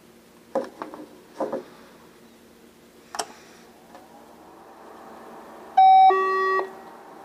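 Handling clicks and knocks on the radio gear, then a loud two-tone electronic beep near the end, a short higher tone followed by a half-second lower one, as the BTECH AMP-U25D RF amplifier is switched on at its power button.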